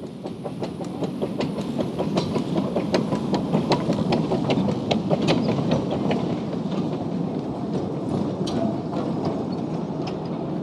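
A 2 ft narrow-gauge steam train passing at close range: the rumble of the locomotive and wooden carriages with a rapid run of sharp clicks from the wheels on the track, loudest around the middle as the train goes by, then easing as the last carriage passes.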